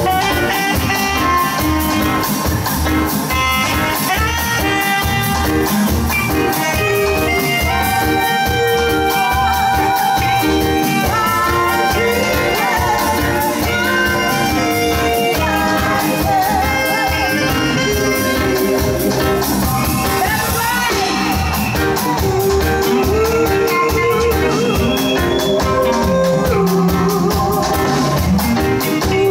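Live band music: a saxophone plays the lead melody in long held and moving notes over drums and bass, with backing vocalists singing along.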